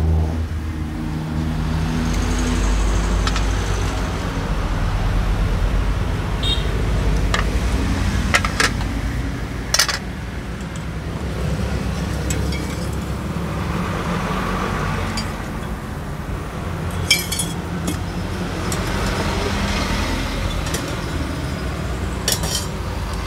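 Serving utensils clinking against a glass jar, metal pots and a ceramic bowl as dessert is spooned out: a handful of sharp, scattered clinks over a steady low rumble of traffic.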